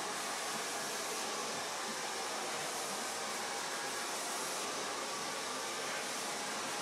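A hair dryer running steadily, an even blowing hiss that does not change.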